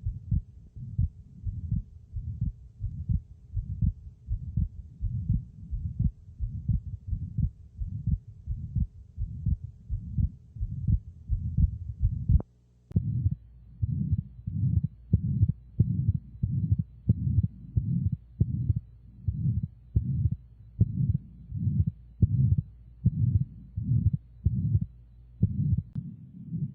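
Abnormal heart sounds recorded through a stethoscope: a steady run of low heartbeats with a murmur between them, a little over one beat a second. About halfway through there is a short break and a second recording starts, and a faint steady hum lies under the first one.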